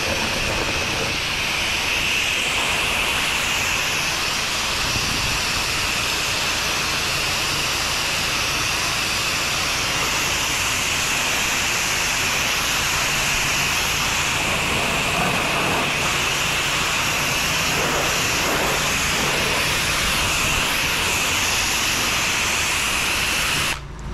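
Water jet from an 8 gpm pressure washer's spray wand hissing steadily as it is sprayed onto vinyl house siding; the spray cuts off suddenly near the end.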